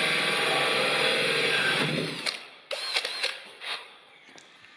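Electric drill with a hole saw fitted, running steadily and then stopping about two seconds in. A few light knocks follow.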